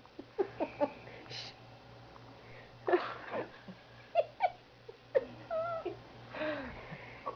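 A person hiccuping over and over: short, sudden, squeaky hiccups, about eight of them, with a couple drawn out into a wavering high squeak.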